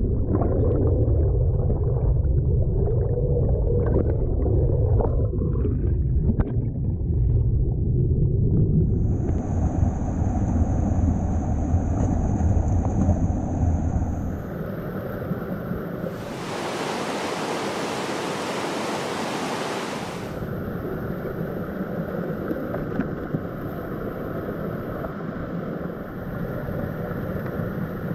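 Stream water rushing, heard first from underwater as a muffled low rumble with gurgling, then, from about halfway, from just above a small cascade of white water as a steady hiss that grows brighter for a few seconds.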